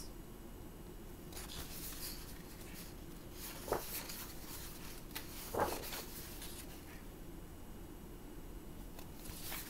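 Pages of a colouring book being handled and turned: soft paper rustling, with two short soft knocks midway, over a faint steady hum.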